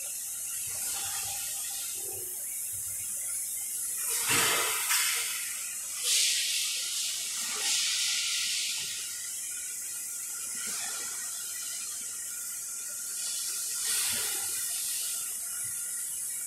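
Handling noise: rustles and a few scraping bumps as gloved hands move a black power cable and its plug, over a steady high hiss.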